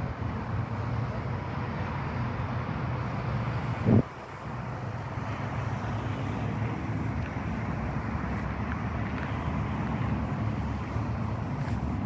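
Steady outdoor city background noise with a low rumble, like distant street traffic. There is a single brief thump about four seconds in.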